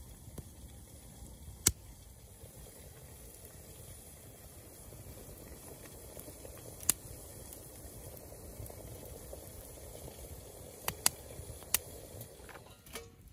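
Wood fire burning in a stainless steel Firebox stove with a kettle of water heating on it toward the boil: a steady rumble and hiss, broken by about five sharp pops from the fire, three of them close together near the end.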